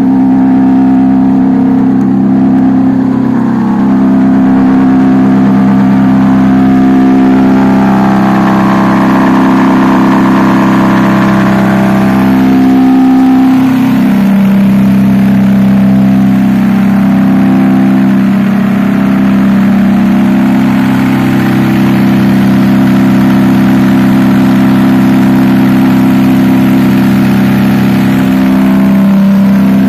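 Powertrac 437 tractor's diesel engine running loud and steady, heard from on the tractor as it tows a water tank. Its note shifts a few seconds in and again about halfway through, as the throttle changes.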